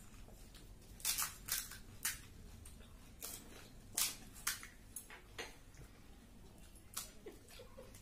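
Crisp, hollow golgappa (pani puri) shells being cracked open and crunched while eating, a string of short crackling crunches at irregular intervals.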